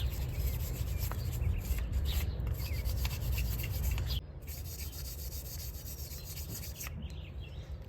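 Steady hand scrubbing as a car engine part is cleaned. It drops to a quieter rubbing about four seconds in.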